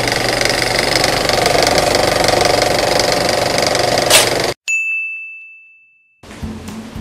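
Film projector sound effect: a loud, steady mechanical whirr with rapid clattering that cuts off abruptly about four and a half seconds in. A single bright ding follows and rings out, fading over about a second and a half. Quiet music starts near the end.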